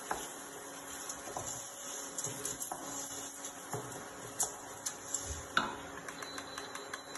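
A wooden spoon stirring rice as it toasts in a hot stainless-steel pot for risotto, with scattered knocks and scrapes of the spoon against the pot, one louder knock a little past halfway, over a light steady hiss.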